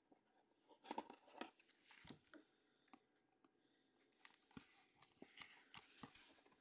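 Faint plastic rustling and light clicks of a trading card in a soft sleeve being slid into a rigid plastic top loader.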